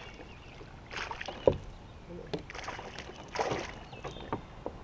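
A fish being fought and reeled in beside a plastic kayak: two short rushes of splashing water, with a single sharp knock about a second and a half in and a few lighter clicks.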